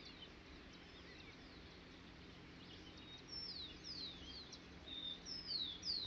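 A small bird calling: a run of high, thin whistled notes, each sliding downward, several a second, faint at first and louder from about halfway through.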